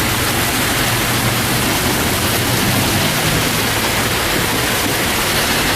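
Heavy downpour of rain and hail, a dense steady hiss with no let-up. A low hum sits under it during the first half.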